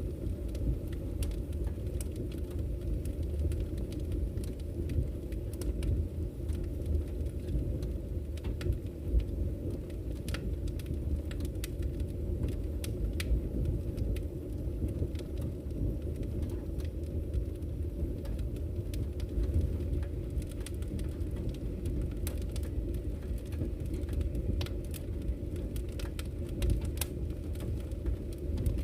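Wood fire burning in a fireplace: a steady low rumble of flames with scattered, irregular sharp crackles and pops from the burning logs.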